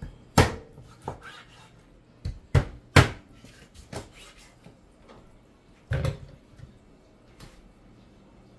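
Kitchen knife chopping raw chicken pieces on a plastic cutting board: sharp, irregular chops, a cluster in the first three seconds and another about six seconds in.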